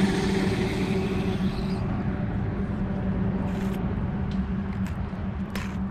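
Cheap baitcasting reel cranked steadily on a retrieve, its gears giving a steady, rough whir that the owner says sounds terrible, like it needs oil.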